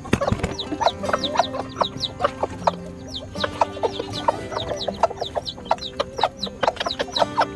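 A flock of chickens clucking, with many quick, high calls that fall in pitch, several a second.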